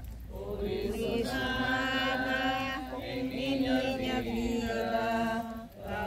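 A group of people singing a religious hymn together in slow, long-held notes, with a brief pause between phrases near the end.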